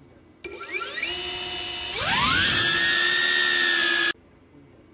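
DJI Avatar FPV drone's motors and ducted propellers spinning up in a rising whine, then throttled up to a loud, steady, high-pitched whine about two seconds in. The sound cuts off suddenly after about four seconds.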